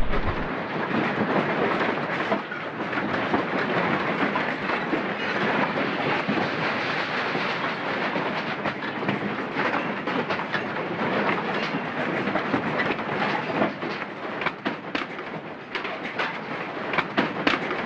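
Continuous clattering and rattling of objects and a building shaken by an earthquake, with sharper separate knocks and clicks in the last few seconds.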